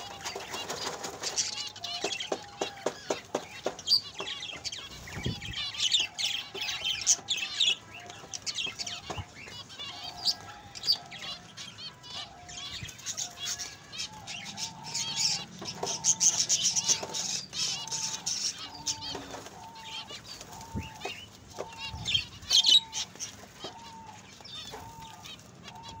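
Zebra finches chirping busily in an aviary, with bursts of wing flapping as birds take off. Through the second half a lower short call repeats about every 0.7 seconds beneath the chirps.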